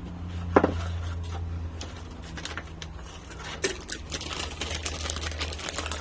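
A serving utensil clicking and scraping against a crock pot as meat sauce is spread over the lasagna noodles, with one sharp knock about half a second in and quicker clicking in the last two seconds, over a steady low hum.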